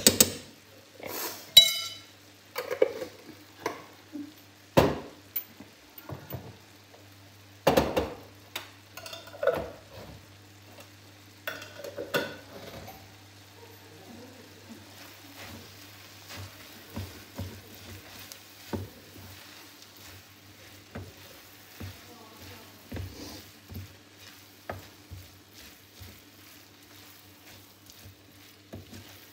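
Ground meat and onions sizzling in a nonstick frying pan. In the first dozen seconds a metal spoon adding spices makes sharp clicks and taps. After that a wooden spoon stirs the mince with lighter scraping and crackling, over a steady low hum.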